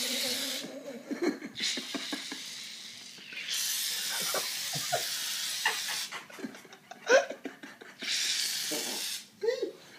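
Aerosol foam can spraying in four hissing bursts, the third the longest, as foam is sprayed onto a person's body. Hushed voices and a brief sharp sound come between the bursts.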